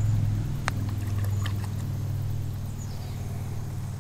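A low, steady mechanical hum, like a running engine, slowly fading, with one sharp click about two-thirds of a second in.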